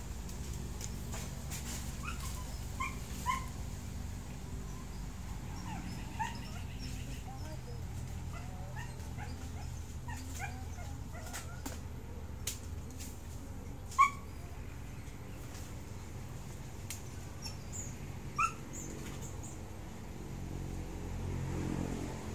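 A dog giving short, scattered whimpering yips, each a brief rising cry, the loudest about fourteen and eighteen seconds in, over a low steady hum.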